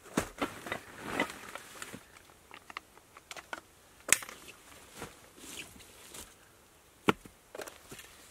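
Rummaging in a backpack: a plastic bag and gear rustling and being handled, broken by a few sharp knocks, the loudest about four and seven seconds in.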